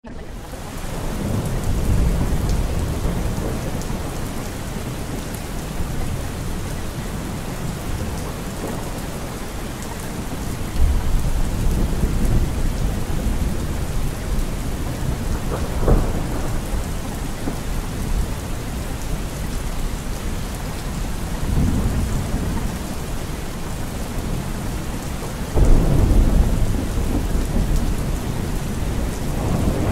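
Steady rain with repeated low rolls of thunder, including a sharp crack about halfway through and the loudest rumble near the end.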